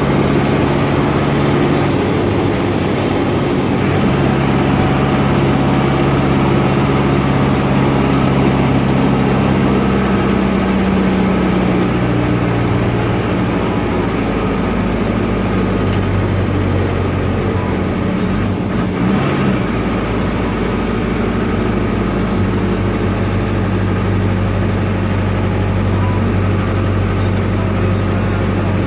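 Air-cooled Deutz F4L912 four-cylinder diesel of an Otokar M-2000 minibus running under way, heard from the cab; its note drops to a lower, steady pitch about halfway through.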